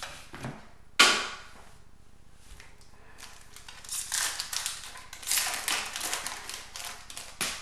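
Hockey trading cards and an opened pack wrapper being handled: one loud sharp snap about a second in, then several seconds of crisp rustling and crinkling as the cards are sorted, with another click near the end.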